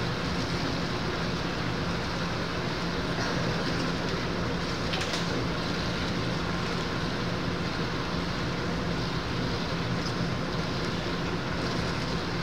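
Steady ambient noise of an indoor pool hall: an even hiss with a constant low hum and no distinct events.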